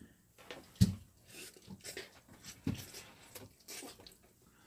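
A person slurping and chewing mixed noodles close to the microphone: several short, wet slurps and mouth sounds, with a sharp smack about a second in.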